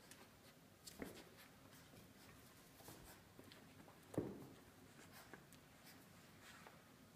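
Near silence with faint scratching and scrabbling of four-week-old puppies' claws and paws on bedding and pen panels, and two soft knocks, about a second in and again about four seconds in, the second the louder.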